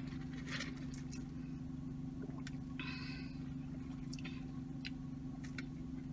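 Steady low hum of a running car heard inside its cabin, with faint scattered clicks and a short slurp through a drinking straw about three seconds in as soda is sipped from a paper cup.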